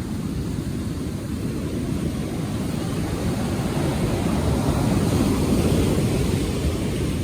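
Breaking surf and wind on the microphone: a steady low rumble that swells about four to six seconds in.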